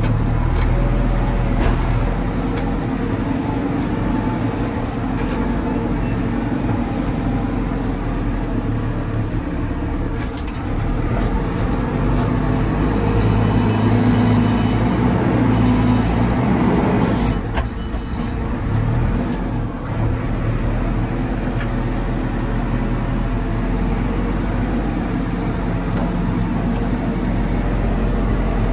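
JCB 4CX backhoe loader's diesel engine running under load as the front bucket works, the engine note rising and falling with the throttle and loudest a little past halfway, then easing off briefly.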